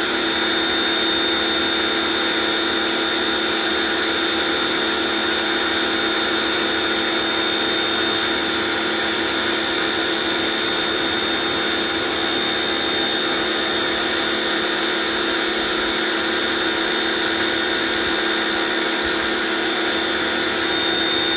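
HGTV Home 1750 PSI pressure washer running steadily, its motor and pump humming under the hiss of the water jet spraying onto concrete.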